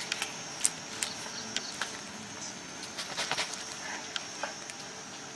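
Faint outdoor ambience from the wildlife footage: a steady hiss with scattered light clicks and rustles, and no calls.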